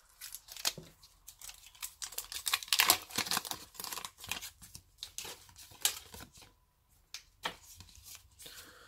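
Foil booster-pack wrapper being torn open and crinkled, in irregular crackling bursts that are loudest a couple of seconds in, followed by sparser rustles and clicks as the trading cards are slid out and handled.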